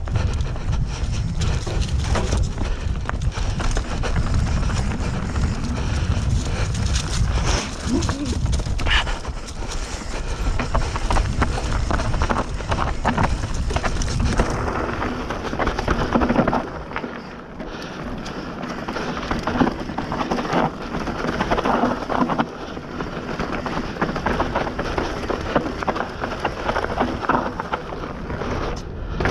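Bird Zero AM MK3 hardtail mountain bike ridden fast down a dry, dusty dirt trail: tyres crunching and skidding over the ground, with frequent clatters and knocks from the chain and frame over bumps. Heavy wind rumble on the microphone eases off about halfway through.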